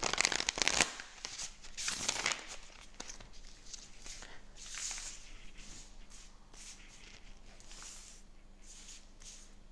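A deck of oracle cards being riffle-shuffled, with a quick dense flutter in the first second and another rustle about two seconds in. Softer swishing and sliding follow as the cards are spread out across a cloth-covered table.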